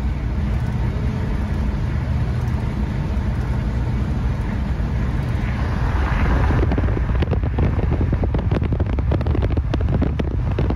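Car engine running steadily under way, with road noise. About six seconds in, a rapid, irregular crackle of sharp pops joins it.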